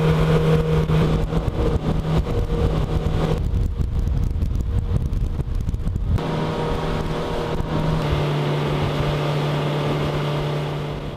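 Yamaha 80 outboard motor running at speed, a steady drone over the rush of water from the hull and wake. For about three seconds in the middle the engine tone gives way to a low rumble, then it comes back.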